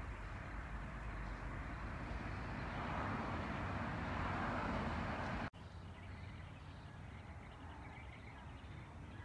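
Steady outdoor background noise that swells for a couple of seconds, then drops off abruptly about halfway through to quieter ambience, with faint bird-like chirps near the end.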